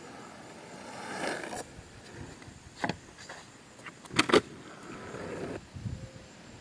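Longboard wheels rolling on asphalt, a couple of sharp clacks, then a loud clatter a little after four seconds in as the board comes down on the road from a 180 tiger flip, followed by more rolling.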